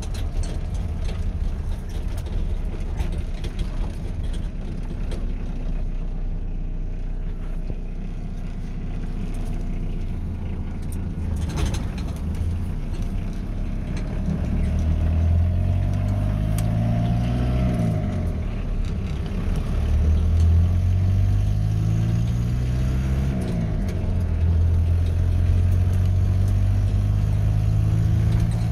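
The 2.2-litre Isuzu C223 four-cylinder diesel of a 1985 Chevy S10 pickup, heard from inside the cab while driving. About halfway through, the engine pulls harder and its pitch rises and then drops sharply twice, as it is run up through the gears of the five-speed manual, before it settles into a steady cruise.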